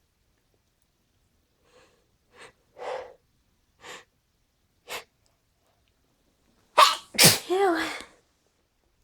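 A person building up to a sneeze with several short catching breaths about a second apart, then sneezing loudly near the end with a sharp burst and a voiced tail.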